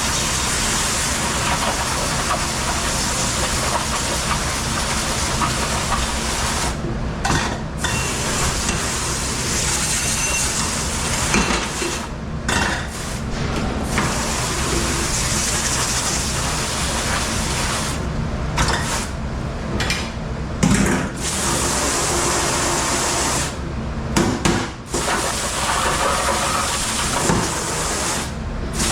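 Water spraying hard and steadily, as from a dish-rinse sprayer or dish machine, stopping briefly several times.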